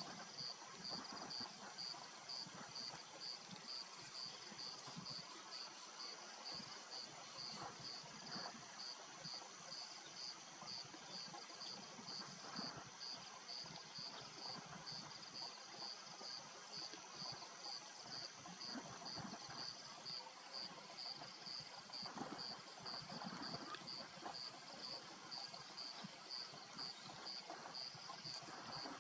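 A lion chewing on a warthog carcass, with irregular soft crunching and tearing sounds, over insects chirping in a steady, rapid pulsing rhythm. A constant high whine runs underneath and stops about two-thirds of the way through.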